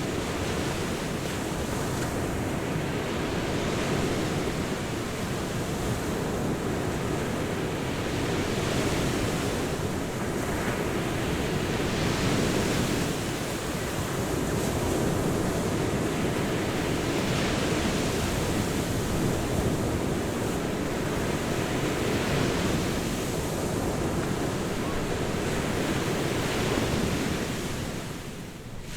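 Ocean surf washing onto a beach, a steady rush that swells as waves break every few seconds, with a brief dip near the end.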